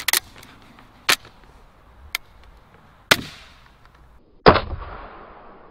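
EK Archery Cobra System Adder crossbow with a 180 lb limb being handled and shot. Light clicks come first, then a sharp snap about three seconds in, and a louder snap a second and a half later that dies away over about a second.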